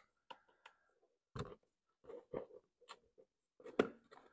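Hands handling plastic wiring connectors and parts around an ATV's ECU: a run of small, separate clicks and knocks, the sharpest about a second and a half in and near the end.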